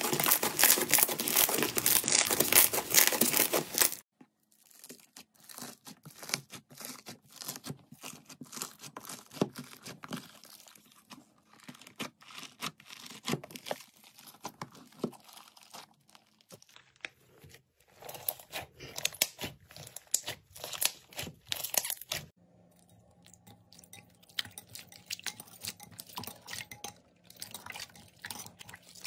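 Slime being squeezed, pressed and poked by hand, crackling and popping with many small clicks. Loud dense crunching for about the first four seconds, then softer, sparser squishes and clicks, changing character again near the end.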